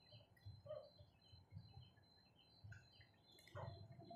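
Faint outdoor ambience: scattered small bird chirps over a steady thin high tone, with soft low thuds about once a second and a brief click near the end.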